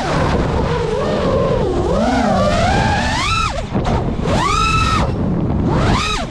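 FPV quadcopter's brushless motors whining, the pitch sliding up and down with the throttle as it dives and climbs. A little past halfway the throttle is chopped and the whine drops away, then it is punched back up to a held high whine, with another brief drop near the end.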